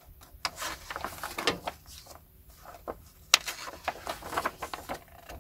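Hardback books and magazines being handled: paper and dust jackets rustling, with short knocks as they are moved and set down, and one sharp tap a little past three seconds in.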